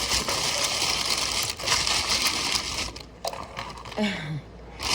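Plastic bag of ice crinkling, with ice shifting, as it is handled and packed around food to keep it cold. The rustling comes in two stretches, with a short break about three seconds in and a quieter moment near the end.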